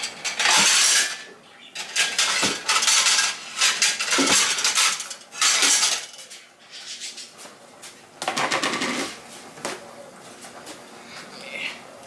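Stacked plates and dishes clattering against each other as a plate is pulled from a kitchen cupboard. A run of clattering bursts lasts about six seconds, and one more clatter comes a couple of seconds later.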